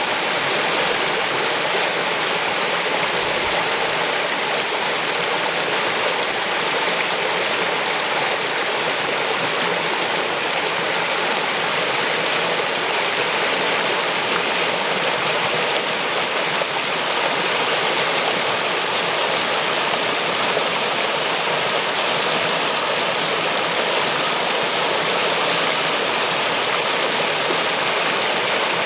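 Shallow stream water running steadily over a riffle and swirling past a tree trunk: a constant, even rush that sits mostly in the high range.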